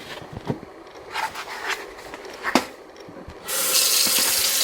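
Rolled oats being scooped with a quarter-cup measure, a few dry scrapes and clicks. About three and a half seconds in, a kitchen tap comes on and runs steadily.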